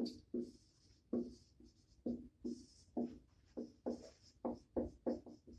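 Dry-erase marker squeaking and scratching across a whiteboard as a line of text is written, in about a dozen short strokes.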